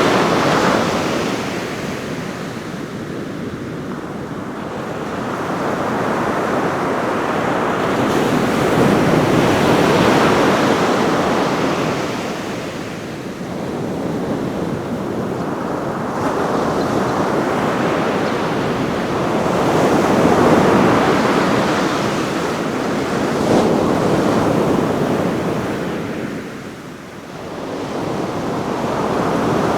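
Ocean surf breaking on a beach: a continuous wash of waves that swells and ebbs every few seconds, the waves blending into a deep, brown-noise-like roar. A little wind on the microphone.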